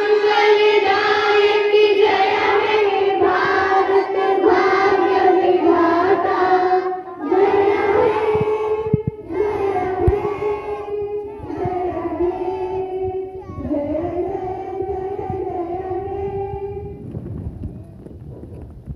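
Children singing a song with long held notes. The singing stops about two seconds before the end.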